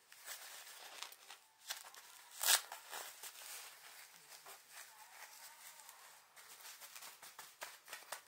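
Disposable dog diaper's plastic backing crinkling and rustling as it is handled and its tape tabs pressed shut, with one sharper crackle about two and a half seconds in.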